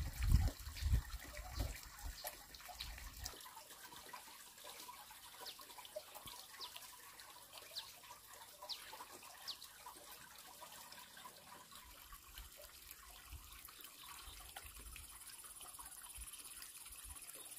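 Water trickling, with a few low thumps in the first three seconds and a run of short, high, falling chirps in the middle. A steady high hiss comes in near the end.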